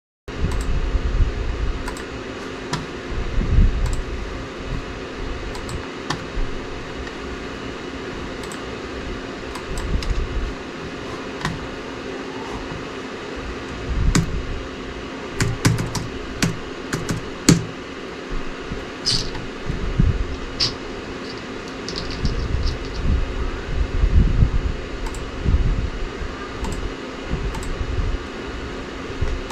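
Computer keyboard keys and clicks tapped in irregular runs, with occasional low thumps, over a steady fan hum.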